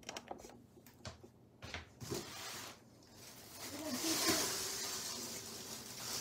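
Rustling of a white artificial Christmas tree's stiff plastic branches brushing against each other and the cardboard box as a section is lifted out. The rustle swells about three seconds in, after a few light handling clicks.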